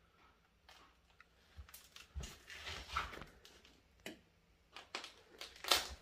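Footsteps crunching and crackling over a floor littered with cardboard, paper and broken wood: a string of irregular steps, the loudest near the end.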